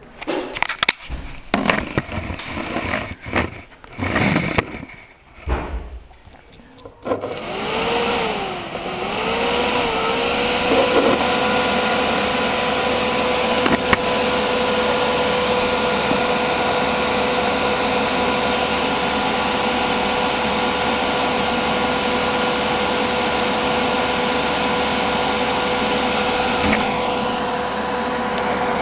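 Handling knocks and clicks for the first several seconds. Then, about seven seconds in, a server fan drawing air through a kitchen-hood filter starts up: a loud steady rush of air with a whine that wavers in pitch before settling into one steady tone.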